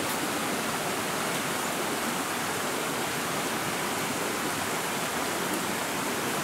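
Steady rush of a stream running over rocks.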